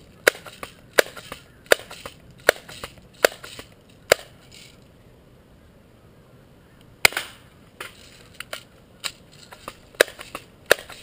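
Sharp snaps and clicks of a Daisy BB gun being cocked and fired. They come in a run at roughly one every three-quarters of a second for about four seconds, pause for a few seconds, then start again more densely about seven seconds in.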